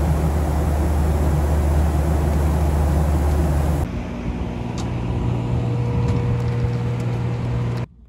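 Steady roar of an airliner cabin in flight: engine and airflow noise with a deep hum. About four seconds in it gives way to a quieter steady aircraft hum with a faint whine out on the airport apron, which cuts off abruptly just before the end.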